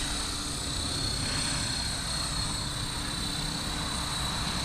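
Blade Fusion 360 electric RC helicopter in flight: a steady high-pitched motor and rotor whine over a low rumble, holding even.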